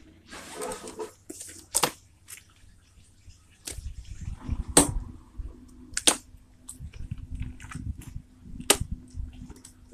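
Glowing putty slime being squeezed and pulled by hand, squelching and letting off several sharp pops as trapped air bursts out, with a low rumble underneath through the middle.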